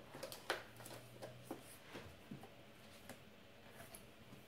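Faint handling clicks and light rustles of a cardboard box and its paper sheet. They come in a cluster over the first two seconds, the sharpest about half a second in, then as a few scattered ticks.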